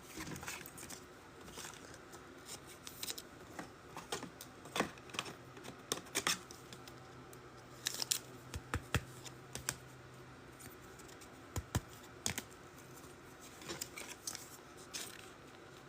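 Trading cards and their foil pack wrappers being handled: scattered light rustles, crinkles and clicks as a pack is opened and the cards are slid through by hand.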